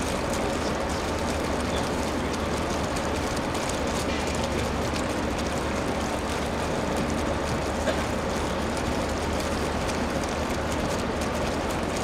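Steady audience noise in a hall: many hands clapping together with crowd chatter, with one sharper knock about eight seconds in.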